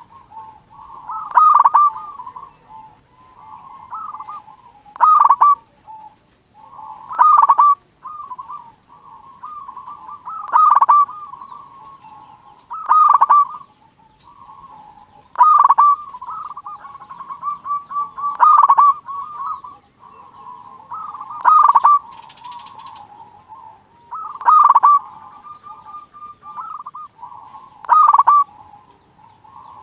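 Zebra dove (perkutut) cooing: a loud rolling phrase every few seconds, with softer cooing in between.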